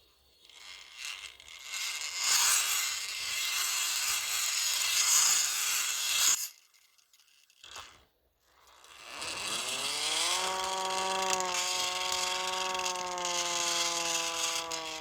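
Handheld hand-cranked air raid siren: for about six seconds its spinning rotor gives a rough whirring noise with no clear pitch, then it stops. After a short pause it is cranked up again into a rising wail that levels off into a steady siren tone.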